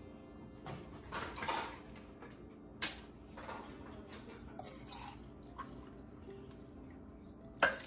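Condensed cream soup being scraped out of a can with a spatula into a slow cooker: wet squelching and dripping with a few clicks, and a louder plop near the end.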